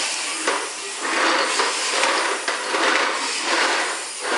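Vacuum cleaner running, its noise rising and falling, with a few light clicks.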